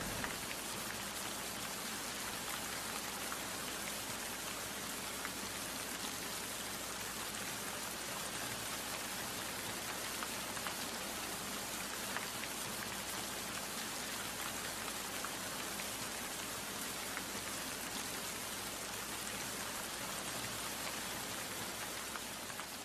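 Steady rain falling, an even hiss with tiny drop patters.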